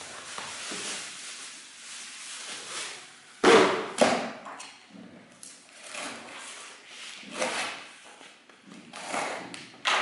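Cardboard boxes and packing being handled on a tabletop: rustling and scraping, with two loud thumps about three and a half seconds in and a smaller knock near the end.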